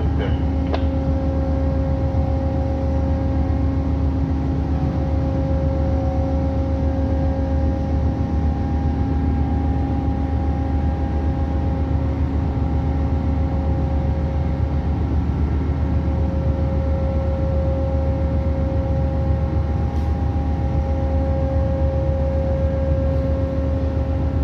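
Steady low machinery drone with a constant hum of several pitched tones above it, unchanging throughout.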